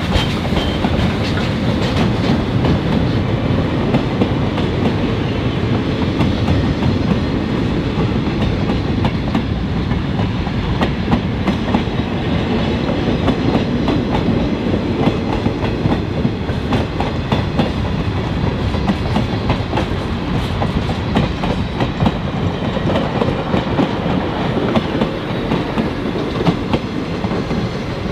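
Freight train rolling past, its wheels clicking and clattering steadily over the rail joints.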